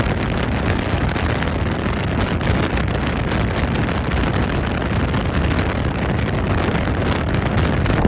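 Strong, steady wind blowing across the microphone: a loud, deep rush with hiss over it, with no let-up.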